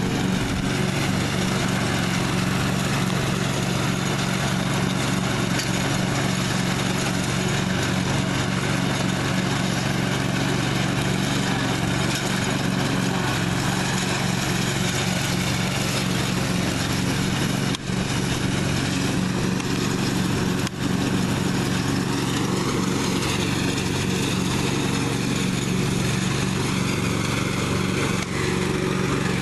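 1998 Husqvarna riding lawn mower's engine running steadily at an even speed.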